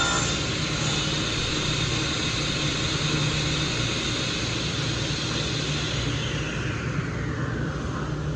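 Holz-Her sliding table saw's motor and blade running freely with a steady whir and low hum, just after a crosscut through wood ends at the start. Over the last couple of seconds a whine falls steadily in pitch as the blade begins to slow down.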